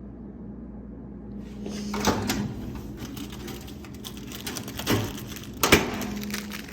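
A few sharp knocks and clatters over a steady low hum, the loudest near the end.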